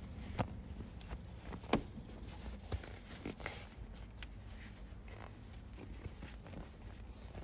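A handful of scattered light clicks and knocks of hand tools and parts being handled during work in a car's engine bay, the sharpest a little under two seconds in, over a low steady hum.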